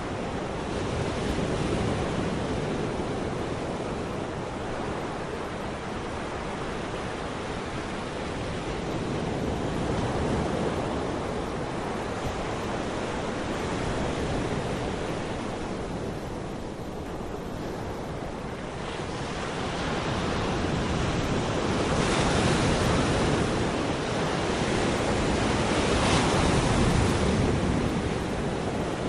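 Steady rushing noise of wind on the microphone, with no voices standing out; it swells in gusts about two-thirds of the way through and again near the end.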